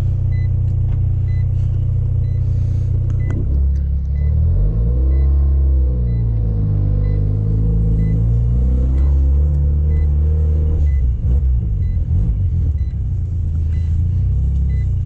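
Mazda RX-7 FC's turbocharged 13B rotary engine, freshly started after a hard start, idling steadily as heard from inside the cabin. About four seconds in its note starts to fall and rise as the car moves off, then settles again near the end, with a faint light ticking about twice a second underneath.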